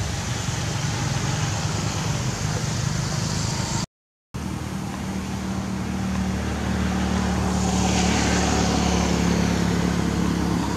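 A motor vehicle engine running steadily, with a low hum. The sound cuts out completely for about half a second around four seconds in, then the engine resumes a little louder.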